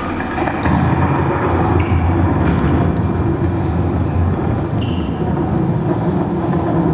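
A loud, steady low rumble that starts suddenly and carries on without a break, played as a stage sound effect.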